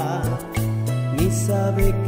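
Music from a Spanish-language romantic song, in a stretch without sung words, over sustained low notes.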